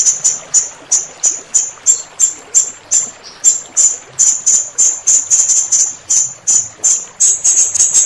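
Blue-crowned hanging parrot (serindit) calling: a run of short, sharp, very high-pitched notes about three a second, quickening into a rapid trill near the end, over a faint background of running water.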